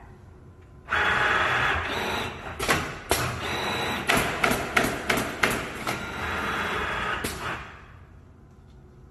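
Allio automatic canvas stretching and stapling machine running a cycle: a loud steady hiss starts about a second in, with a quick series of about ten sharp snaps from its staplers and actuators. Everything stops suddenly after about seven and a half seconds.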